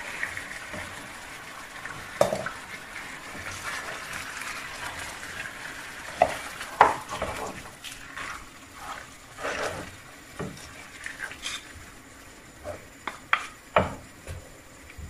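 Chopped onions and garlic sizzling in a frying pan while a wooden spatula stirs and scrapes them. Later come scattered knocks and clicks as pieces of ossobuco shank are pushed into the pan, with the sizzle dying down.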